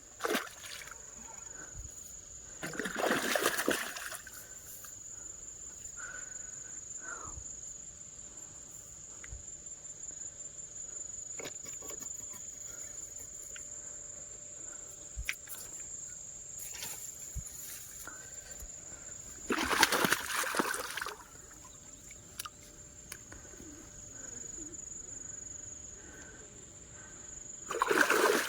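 Water splashing in three bursts as a hooked snakehead (murrel) thrashes at the surface on a frog lure, over a steady high whine.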